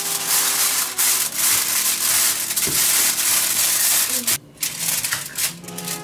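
Loud, rough scraping noise for about four seconds that stops abruptly, then a few light clicks.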